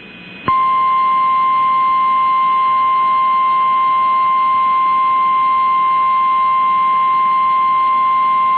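Emergency alert warning tone of the kind NOAA Weather Radio sends (about 1050 Hz) before a severe thunderstorm warning: one loud, steady, unbroken beep that starts about half a second in and holds. It comes through a radio receiver, so it sounds narrow and a little tinny.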